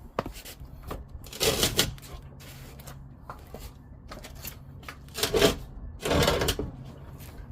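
Scraping and clunking as a Land Rover LR4's fuel tank is worked out from under the car. There are three short rasping scrapes, about a second and a half in and twice more near the end, with small knocks between them, over a faint steady hum.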